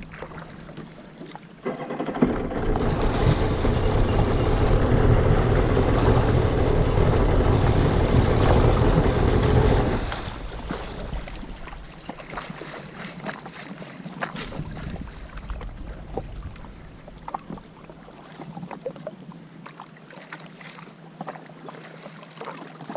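Sea-Doo personal watercraft engine throttling up about two seconds in and running steadily, then cutting back sharply about ten seconds in. What follows is much quieter, with scattered small clicks.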